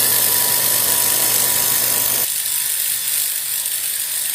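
Handheld fiber laser welding machine running with a steady hum and hiss. A little over two seconds in, the lower part of the sound cuts off abruptly and a thinner hiss carries on.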